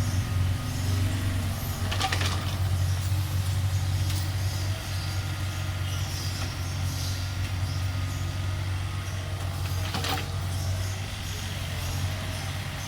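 Heavy diesel engine of construction machinery running steadily at a low drone, with two sharp knocks, about two seconds in and again about ten seconds in.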